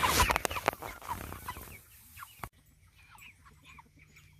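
Chickens clucking busily, with a rustling clatter in the first second. After an abrupt cut about two and a half seconds in, the clucking goes on more faintly over a steady low hum.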